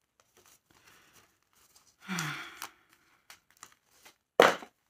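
Clear plastic packaging rustling and crinkling as a wallet is unwrapped, with a loud, sharp crinkle or rip of the plastic near the end. About two seconds in, a short vocal sigh or hum falls in pitch.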